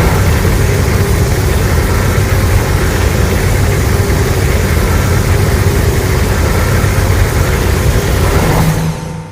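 Loud, continuous low rumble with a rushing hiss above it, holding steady and fading out near the end: a giant-monster sound effect from the Godzilla Monsterverse films.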